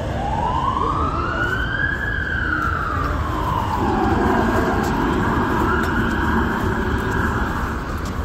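Emergency vehicle siren wailing: its pitch rises slowly to a peak, falls away, then climbs again and holds high, over a steady rumble of city traffic.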